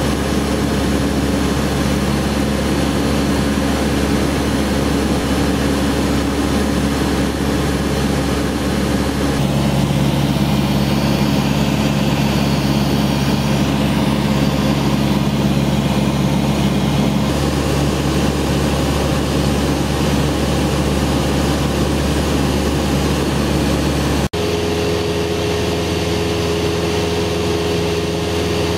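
Cessna 172's piston engine and propeller droning steadily, heard inside the cabin. The note shifts about a third of the way in, and near the end breaks off abruptly into a higher, steadier tone.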